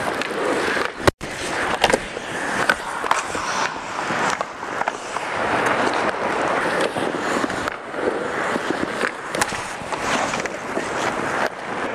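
Ice hockey skates scraping and carving on the ice around the goal, with repeated sharp clacks of sticks and pucks as shots come in on the goalie. One loud crack about a second in.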